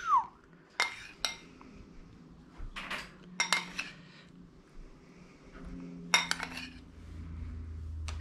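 Metal spoon clinking against a ceramic bowl while spooning out melted garlic butter: a handful of short, sharp clinks spaced irregularly, with a couple in quick succession about six seconds in.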